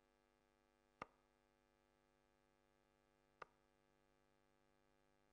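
Two darts striking a Unicorn Eclipse HD2 bristle dartboard: faint, short, sharp thuds about a second in and again about two and a half seconds later, over a faint steady hum.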